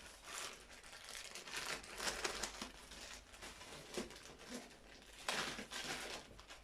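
Packaging being handled and rummaged through, with irregular crinkling and rustling strokes as items are pulled out of a box.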